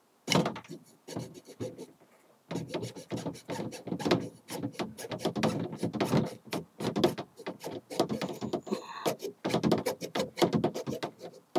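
A junior hacksaw sawing through a flexible plastic water supply hose with quick back-and-forth rasping strokes, pausing briefly about two seconds in before sawing on steadily.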